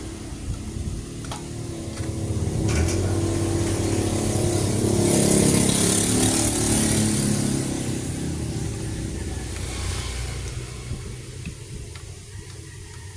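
A motor vehicle passing by: its engine grows louder for a few seconds, peaks about halfway through, then fades away.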